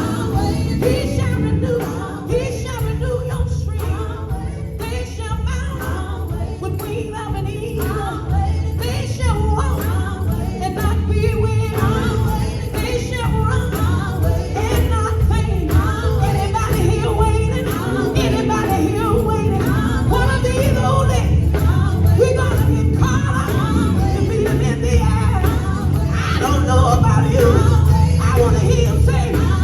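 Live gospel music: a vocal group singing over a full band with a steady drum beat and bass.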